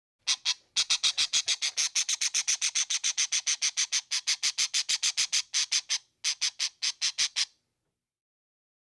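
A bird calling: a fast run of sharp, high notes, about six a second, broken by two brief pauses.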